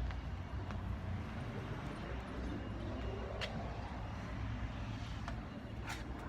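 Large road vehicle, likely a bus, running with a steady low engine and road rumble and a few light clicks or rattles.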